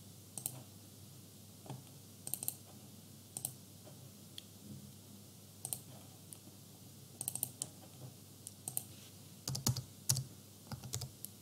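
Faint computer keyboard keystrokes and clicks in short, irregular clusters of a few at a time, with pauses between them.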